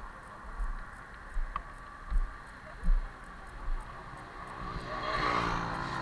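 Wind buffeting the microphone in irregular low thumps, then a vehicle passing on the road near the end, its engine note rising as it goes by.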